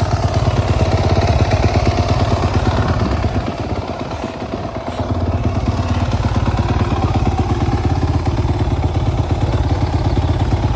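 Suzuki RM-Z450's single-cylinder four-stroke engine running through its stock exhaust, with steady firing pulses. It drops in level for a couple of seconds about halfway, then runs steady again.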